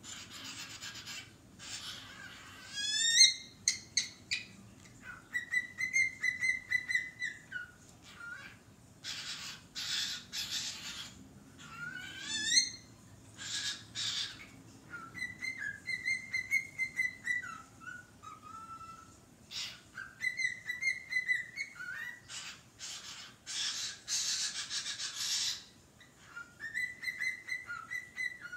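Cockatiel calling for attention: loud, harsh screechy calls alternating with whistled notes held about two seconds each, and twice a quick stepped rising whistle.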